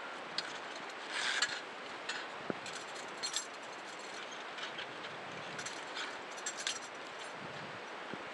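Scattered light clinks and knocks of scuba gear over a steady hiss, heard muffled through a head-mounted underwater camera's housing.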